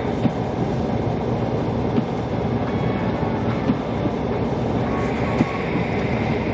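Inside a moving car: a steady rumble of tyres and road with the heater fan running, and a few light knocks.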